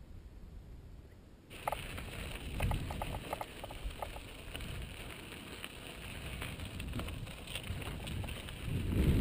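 Mountain bike rolling over a gravel dirt trail: tyres crunching with scattered clicks and rattles. It starts about a second and a half in, after a quieter moment. Wind buffets the helmet-mounted camera's microphone and grows louder near the end.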